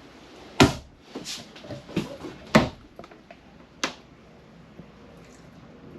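Cabinet doors in a motorhome bathroom being opened and shut: about five knocks and bumps over three seconds, the loudest about half a second in and about two and a half seconds in.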